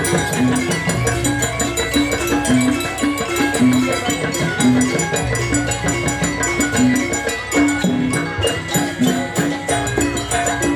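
Live Javanese gamelan-style dance accompaniment: short ringing metallic notes repeat in a steady pattern over hand-drum rhythms.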